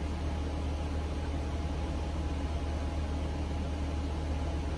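Steady hum of a small electric desk fan: an unbroken low drone with a faint steady whine and an even rush of air above it.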